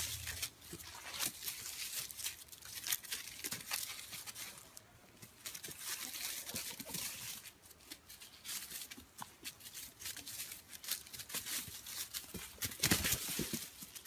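Irregular crinkling and rustling with many small, sharp clicks and taps, loudest near the end.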